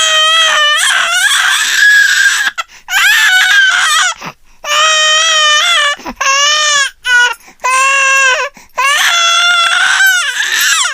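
Baby girl crying: a run of about six loud, high-pitched wails, each lasting under a second to a couple of seconds, with short breaks for breath between them.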